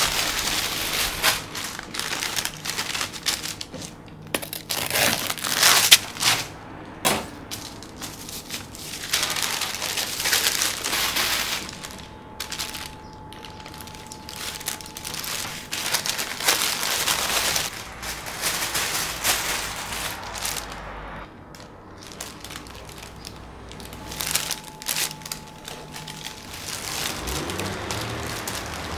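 Crinkling and crackling in irregular bursts, with scattered sharp clicks. A faint steady high hum comes in twice in the middle.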